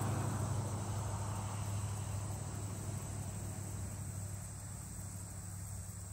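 Insects chirring steadily in the evening, over a low steady rumble that slowly grows quieter.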